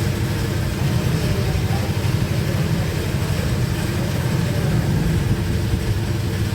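Bajaj Pulsar 180's single-cylinder engine running steadily at a low, even rumble.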